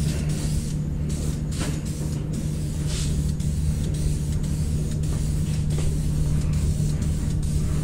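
Short, irregular hisses of paint being sprayed over a steady low machine hum.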